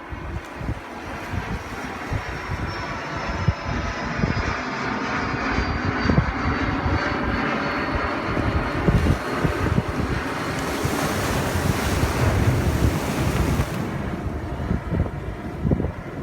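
Wind buffeting the microphone over ocean surf, with the drone of a passing engine and a faint whine that slowly falls in pitch. About ten seconds in, a wave washes in with a rush of hiss that lasts a few seconds.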